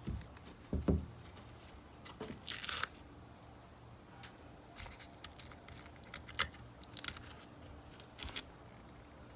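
Scattered handling noises with the orbital sander switched off: a couple of low thumps about a second in, a brief rustling scrape a few seconds in, then a few light clicks and taps.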